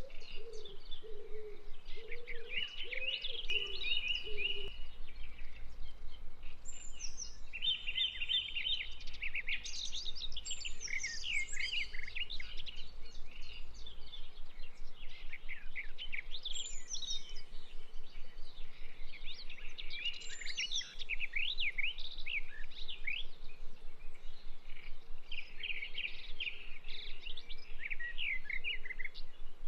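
Birds singing and chirping, many quick overlapping calls and trills, with a lower warbling call during the first few seconds.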